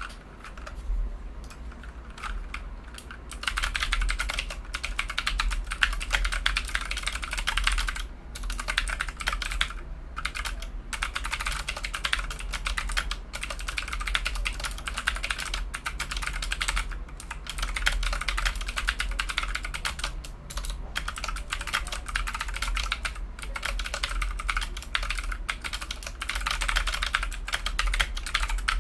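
Fast continuous typing on a Rakk Kimat XT mechanical keyboard with clicky blue Gateron switches, a dense run of sharp key clicks broken by a few short pauses. A steady low hum sits underneath.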